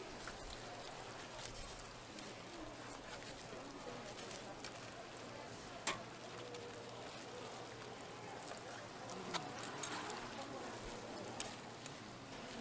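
Hotteok frying in shallow oil on a flat street-stall griddle, a steady sizzle, with a few sharp clicks of metal tongs and presser discs, the loudest about six seconds in and several more around nine to eleven seconds.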